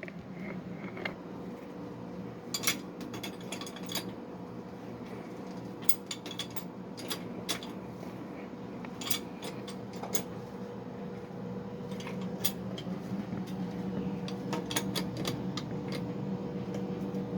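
Scattered light clicks and clinks of tools and fittings being handled during plumbing work, over a steady low hum.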